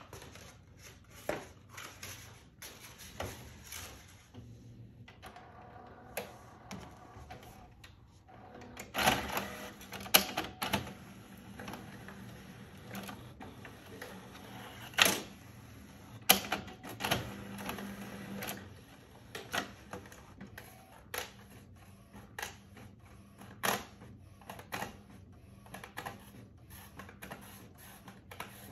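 Large inkjet printer pulling in a sheet of brown paper and printing on it: irregular clicks and clunks from the paper feed and print-head carriage. A motor whirs about six seconds in, and a low hum runs through the middle.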